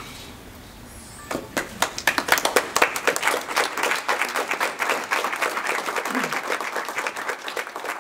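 An audience applauding, with dense clapping that breaks out about a second in and carries on steadily.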